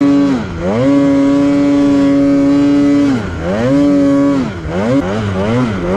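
Polaris Khaos 9R snowmobile's two-stroke twin engine running at high revs through deep powder. The throttle is let off and reopened about three times, so the pitch drops and climbs back, with lower, uneven revs shortly before the end before it rises again.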